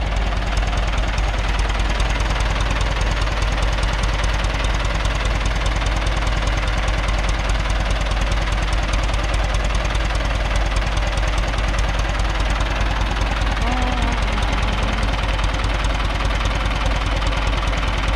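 Ford 6610 tractor's four-cylinder diesel engine running at a steady speed, with a fast, even beat of firing strokes.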